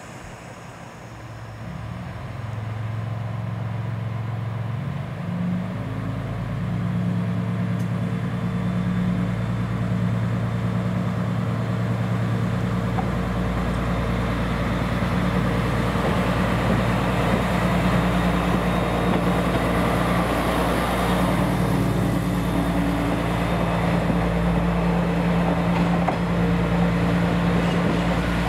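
JR West KiHa 120 diesel railcar pulling away from a station, its diesel engine working under power. It grows louder over the first few seconds as the engine opens up, the note stepping up about five seconds in, then runs on as a steady loud drone with a deep rumble as the railcar accelerates past.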